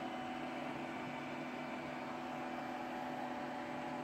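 Mingda Magician Pro 2 3D printer's fans running after a finished print: a steady hum with a few constant tones and no changes.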